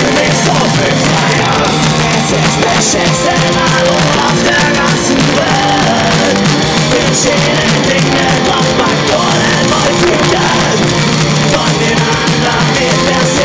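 Punk rock band playing live: electric guitars, bass guitar and drums, loud and steady throughout.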